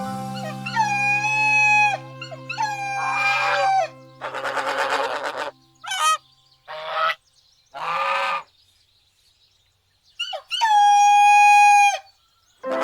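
A series of animal calls: long calls held on one pitch, each about a second or more, the loudest near the end, with shorter, rougher, noisier calls in between. Soft steady music sounds underneath in the first half.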